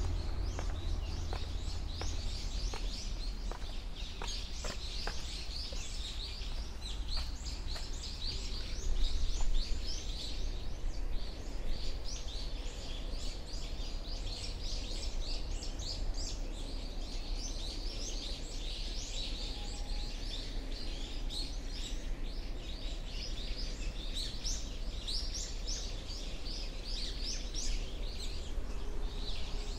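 Many small birds chirping without pause, a dense chatter of short high calls, over a steady low rumble.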